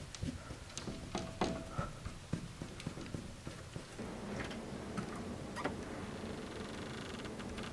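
Scattered light taps and clicks, then a steady low hum that comes in about four seconds in, with a few more clicks over it.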